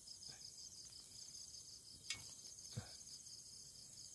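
Crickets chirring steadily at night, with a short click about two seconds in and a soft knock just before three seconds.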